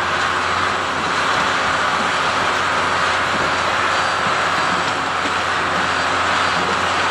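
Front-end wheel loader's diesel engine running steadily under load as it moves a locomotive along the rails.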